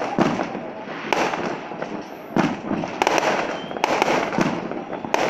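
Aerial fireworks bursting overhead: a string of sharp bangs about once a second over a continuous crackling din.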